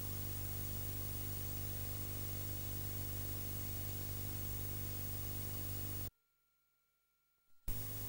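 Steady hiss with a low electrical hum, the background noise of a blank stretch of recording. Near the end it cuts out to dead silence for about a second and a half, then comes back with a short click.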